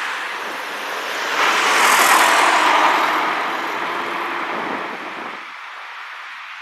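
A car passing by, its tyre and engine noise swelling to a peak a couple of seconds in and then fading away.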